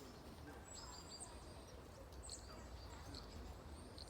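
Faint, high-pitched bird calls: short chirps, several falling in pitch, repeated every second or so, over a low steady background rumble.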